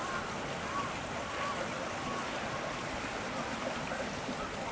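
Steady rushing noise like running water, with a few faint, short, wavering high squeaks in the first second or so.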